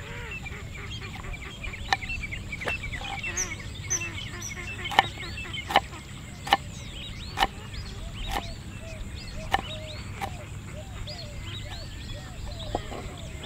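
Kitchen knife chopping garlic cloves on a wooden cutting board, about a dozen sharp knocks at uneven intervals. Birds chirp and call steadily behind the chopping.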